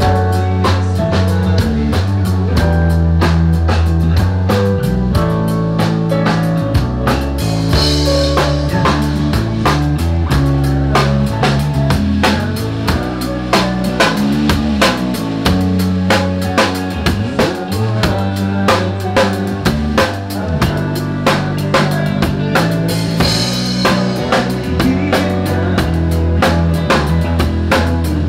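Rock band playing live through the stage PA: a drum kit keeps a steady beat with snare and bass drum under held bass-guitar notes and guitar chords. Cymbal crashes ring out about eight seconds in and again near the end.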